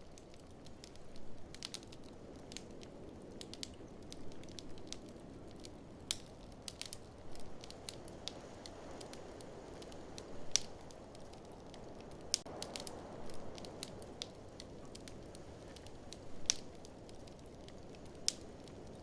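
Wood fire crackling in an open fireplace, with irregular sharp pops, a few louder than the rest, over a steady low rush of blizzard wind that swells and eases.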